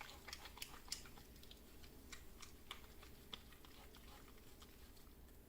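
Faint wet clicking and squelching of hands working up lather from a bar of handmade soap, the clicks growing sparse in the last two seconds.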